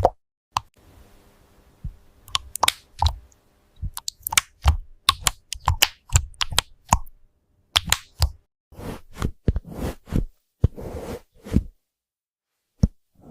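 Keyboard typing ASMR: irregular, crisp key clicks several per second, turning after about eight seconds into fewer, longer and noisier key presses, then a pause and a single click near the end.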